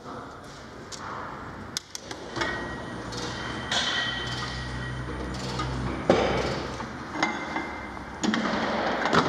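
Metal tools and car parts being handled: a string of sharp clinks and knocks at irregular intervals, with a low steady hum through the middle.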